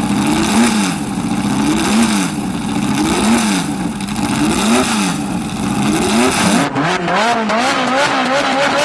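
V8 supercar engines being revved. One engine is revved repeatedly, its pitch rising and falling about every second and a half. Near the end it cuts abruptly to another V8 blipped in quicker, shorter revs.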